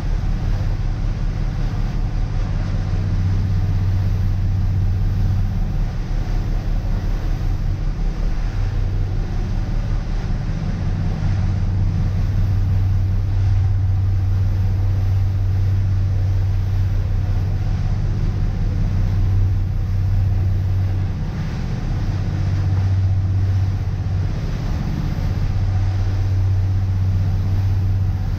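Motor cruiser running at speed on open sea: a steady low engine drone that dips briefly a few times, over a constant rush of wind and water.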